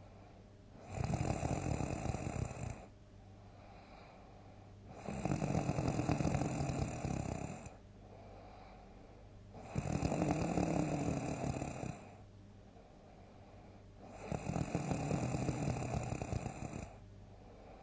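A sleeping person snoring loudly: four long snores come at an even rhythm about four to five seconds apart, with quieter stretches between them.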